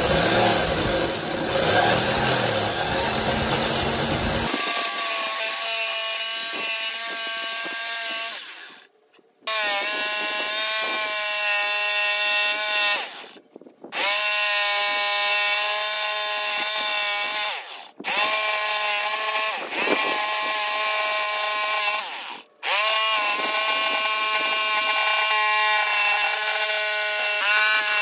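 Electric jigsaw cutting a mahogany board. It starts as a rough, noisy cut, then becomes a steady motor whine that stops four times and rises in pitch each time the motor spins back up.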